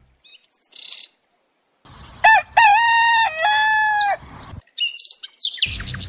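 A rooster crows once, a single call of about two seconds. Small birds chirp before and after it.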